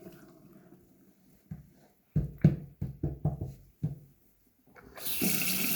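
A sink tap shuts off, then a quick run of about eight sharp knocks and taps at the sink within two seconds, the loudest of them a little over two seconds in. About five seconds in, the tap is turned back on and water runs into the sink.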